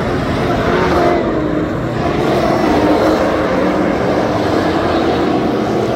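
USRA stock car V8 engines running loud on a dirt oval, their pitch rising and falling as the cars accelerate and lift.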